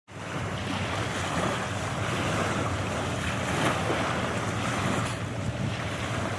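Ocean waves washing in as a steady rush, with wind buffeting the microphone.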